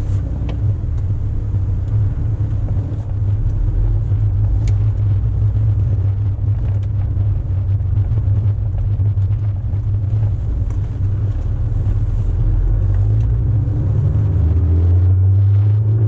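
Honda S2000's four-cylinder engine running as the car is driven, a steady low drone with road noise. The engine note rises near the end.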